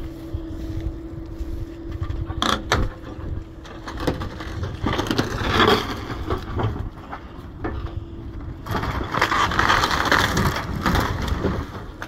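Wood crunching and cracking over a steady engine hum. There is a sharp crack about two and a half seconds in, then two longer bouts of crunching and scraping.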